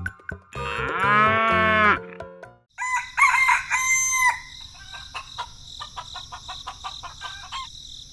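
A rooster crowing once, a long call that rises and falls, followed by a few shorter clucking calls. A steady high-pitched whine with scattered light clicks carries on after them.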